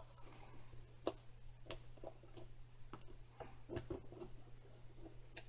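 Small metal clicks and taps of a thin pick tool working a gear off the spindle of a Marryat MR7A fly reel, with a few sharper clicks about a second in, near two seconds and near four seconds.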